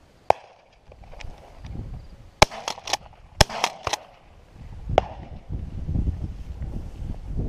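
A string of sharp shotgun-like cracks: one near the start, a rapid cluster of about six between two and four seconds in, and one more at about five seconds. A low rumble builds up in the second half.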